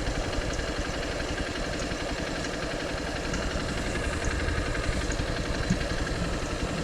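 Motorcycle engine running steadily at low revs, with an even firing rhythm and no revving.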